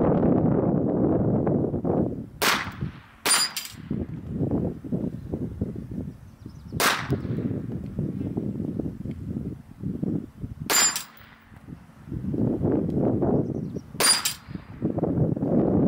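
STI pistol firing about seven shots at a steel plate rack, irregularly spaced singles and quick pairs, each with a brief metallic ring from the hit steel plate. A low rushing noise fills the gaps between shots.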